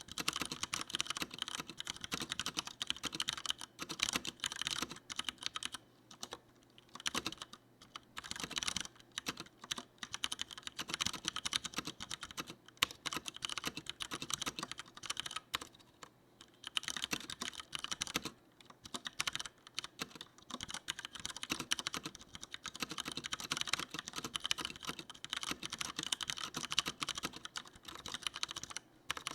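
Typing on a Leopold FC900R mechanical keyboard with tactile Cherry MX Brown switches: rapid, continuous keystrokes. There are a few short pauses, about six, eight and sixteen seconds in.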